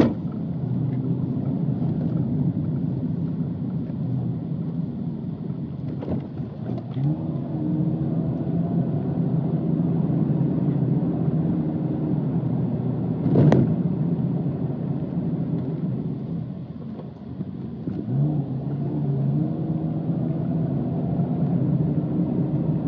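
Car engine and road noise heard from inside the cabin while driving. The engine note rises twice as the car picks up speed, and there is a single sharp thump about halfway through.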